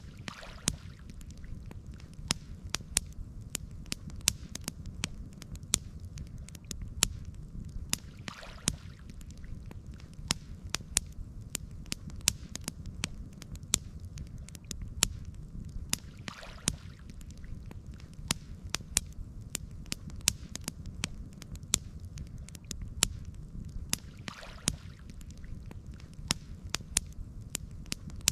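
Campfire crackling, with many irregular sharp pops and snaps over a steady low rumble of burning. A soft swish recurs about every eight seconds.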